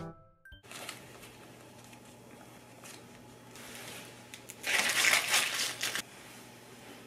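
Plastic candy wrappers crinkling and rustling as wrapped sweets are handled and dropped into a cloth tote bag. The loudest crinkling comes in a burst lasting about a second, about five seconds in.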